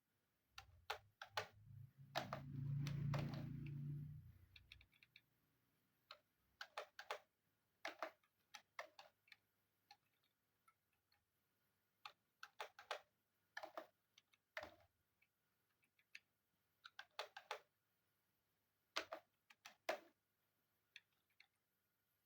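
Irregular sharp clicks and taps of hands handling an all-in-one computer's plastic and metal parts, with a brief low rumble in the first few seconds.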